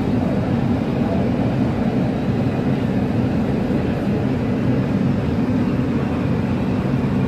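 Inside a Breda A650 subway car running at speed through a tunnel: a steady low rumble of the train in motion.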